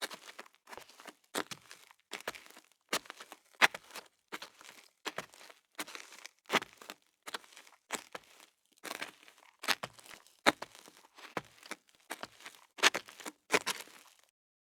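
Footsteps in heeled shoes walking on gravel, each step a crunch of stones underfoot, about three steps every two seconds, stopping shortly before the end.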